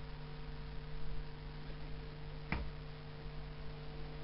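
Steady electrical mains hum with a single sharp plastic click about two and a half seconds in, as the hinged key panel of an electronic accordion is lifted out of its mounting.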